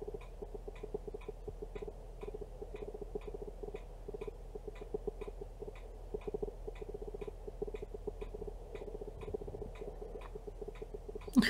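A clock ticking steadily, about two ticks a second, over a low, uneven hum. A sharp knock near the end is the loudest sound.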